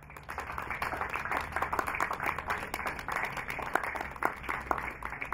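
Audience applauding, a patter of many separate hand claps.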